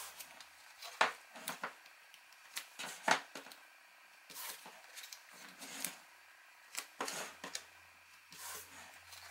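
Handling cardstock and a roll of double-sided score tape on a tabletop: scattered taps and short paper rustles as the tape is pulled from the roll and pressed onto the card, the sharpest taps about one and three seconds in.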